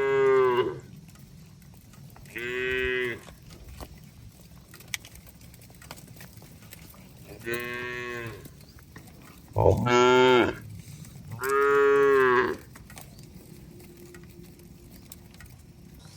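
Cattle mooing: five separate calls of about a second each, the loudest near the start and in the second half.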